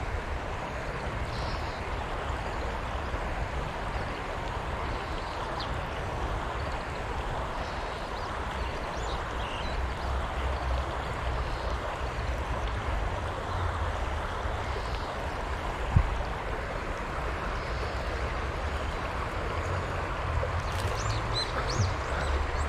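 Steady wind noise buffeting the microphone, a rushing haze with an uneven low rumble. A single sharp knock sounds about 16 seconds in.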